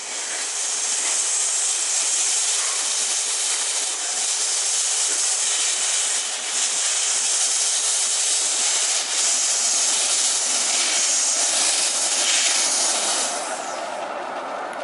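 Bassett-Lowke 15-inch gauge steam locomotive blowing steam from its open cylinder drain cocks as it moves off slowly: a loud, steady hiss that dies away near the end.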